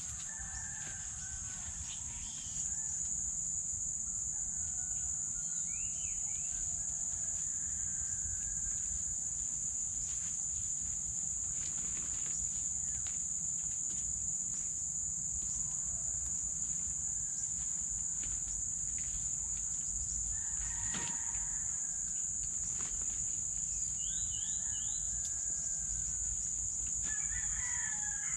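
Roosters crowing and chickens calling in the distance over a steady, high-pitched drone of insects, which gets louder about two and a half seconds in.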